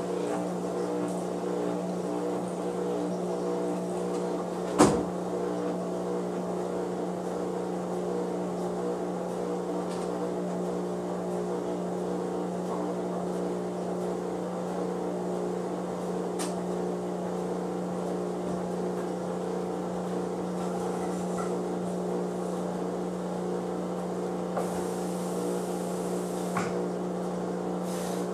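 Whirlpool front-load washing machine running with a steady hum. There is a sharp click about five seconds in and a few faint ticks later.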